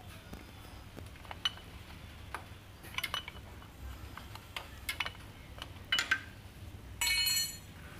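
Metal hand tools clinking as an oil filter puller is fitted around a spin-on oil filter under an SUV: scattered light clicks and clinks, then a brief ringing metallic clink near the end.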